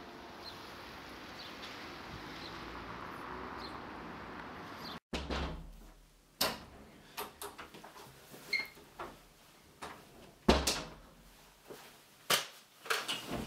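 Steady outdoor background hiss. After a sudden cut it gives way to indoor handling noises: a door being opened and shut, footsteps and scattered clicks and knocks. Two loud thumps come near the end.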